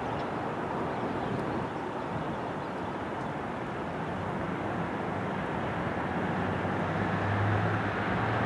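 Diesel locomotive of an approaching CSX freight train: a low, steady engine hum that grows louder over the second half, over a continuous rushing background.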